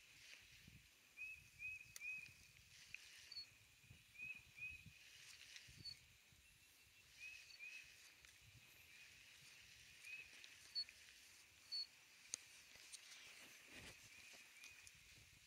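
Faint outdoor wildlife: short chirping calls at one pitch, mostly in twos or threes every few seconds, with a few higher single peeps, over soft low thumps.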